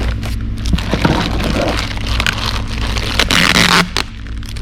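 Packaging and small accessories being handled and unwrapped: rustling, scraping and small clicks, with a denser burst of rustling about three seconds in. A steady low electrical hum runs underneath.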